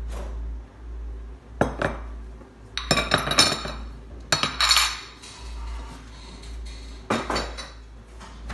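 Utensils and dishes clinking and clattering against a glass bowl in four short bursts.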